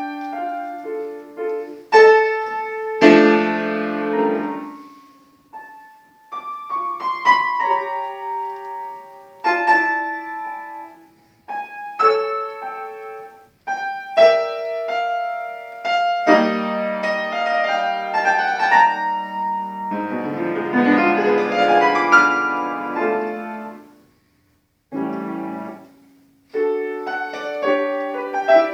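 Solo acoustic piano playing a classical piece in phrases, with separate struck notes and fuller chords, and a brief pause a little after the middle.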